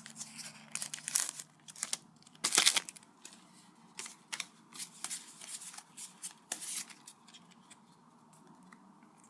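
Foil booster pack wrapper crinkling and trading cards being slid out and flicked through by hand: a run of short crackles and rustles, the loudest a brief crinkly burst about two and a half seconds in, dying away after about seven seconds.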